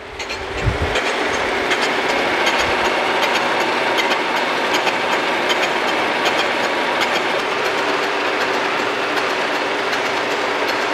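Kearney & Trecker 2H horizontal milling machine's big multi-insert face mill turning slowly and cutting the side of a cast iron straight-edge casting under power feed: a steady cutting noise with faint repeated ticks. It sounds like one tooth is doing most of the cutting.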